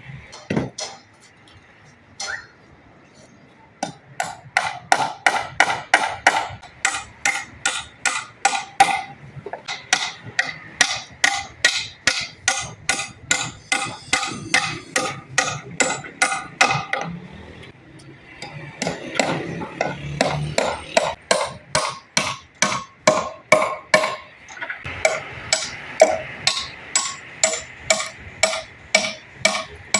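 Hammer blows on wood, struck steadily about two times a second, with a short break about halfway through.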